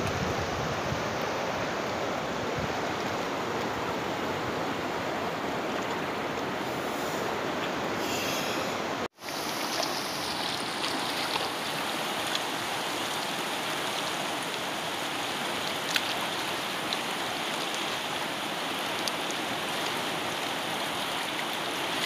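Fast river water rushing steadily over rocks, with a brief dropout about nine seconds in.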